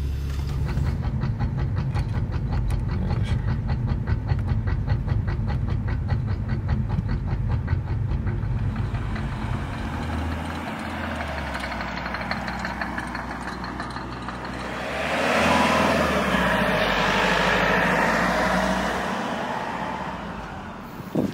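BMW F31 335i's turbocharged straight-six running at low speed under a fast, even clacking that keeps pace with the wheels as the car is nursed along on a snapped rear half shaft with its welded differential. About fifteen seconds in, a car passes with a swell of engine and tyre noise that fades out.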